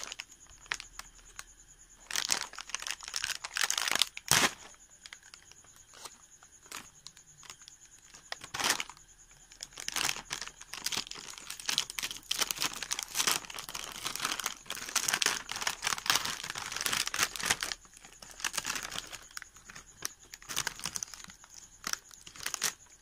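Foil-lined plastic snack bag being crinkled and torn open by hand: a few sharp crackles in the first half, then almost continuous crinkling from about ten seconds in until near the end.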